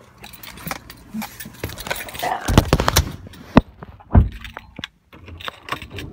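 Camera handling noise: rustling with a run of sharp clicks and knocks close to the microphone, the heaviest about two and a half, three and a half and four seconds in, and a brief cut-out just before five seconds.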